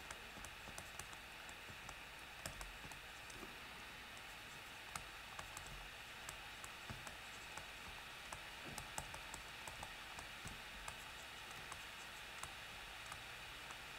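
Faint, irregular small clicks and taps of a stylus writing on a tablet screen, over a steady low hiss.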